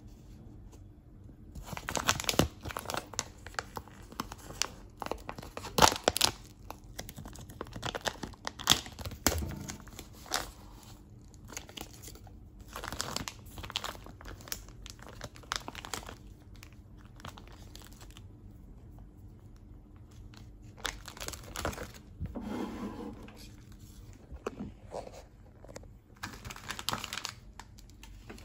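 Clear plastic wrap of a frozen pizza crinkling and tearing as hands pull it open, in irregular bursts with a lull of a few seconds past the middle.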